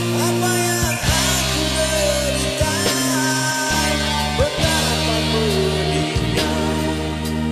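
Rock ballad karaoke backing track playing, with a lead melody gliding over held chords that change every few seconds.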